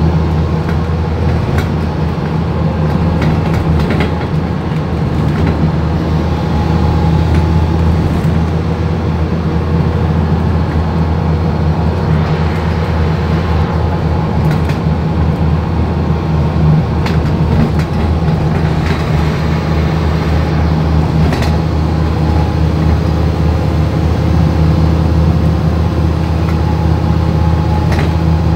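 Service bus under way, heard from inside the passenger saloon: a steady low engine drone with road noise, and a few sharp clicks and knocks from time to time.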